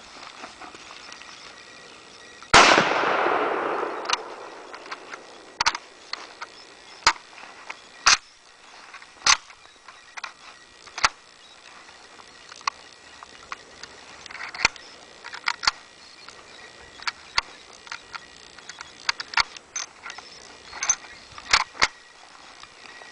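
A single shot from an M44 Mosin-Nagant carbine in 7.62×54R about two and a half seconds in: a loud crack with a long echoing tail. It is followed by a scatter of much fainter sharp cracks and clicks.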